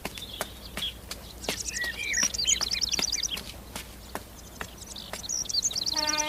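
Small birds chirping in quick repeated trills, over the footsteps of a person running. Near the end a steady pitched tone comes in.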